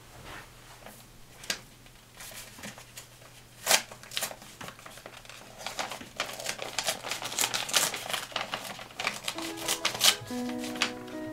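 Paper rustling and crinkling in short irregular crackles as a letter is handled and unfolded. Soft music notes come in near the end.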